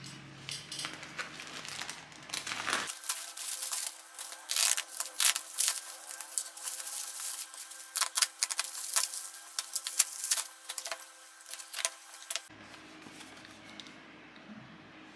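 Black plastic courier mailer bag crinkling and tearing as it is ripped open by hand: a dense run of sharp crackles lasting about ten seconds, then quieter handling.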